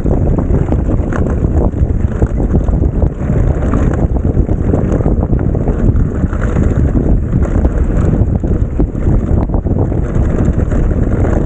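Wind buffeting an action camera's microphone on a moving mountain bike, with a dense rattle of tyres and bike over rough trail.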